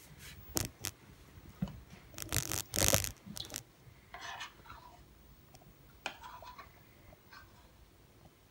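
Metal spoon clinking and scraping against ceramic bowls while eating. There are a few sharp clicks, and a louder, longer noisy stretch about two to three seconds in.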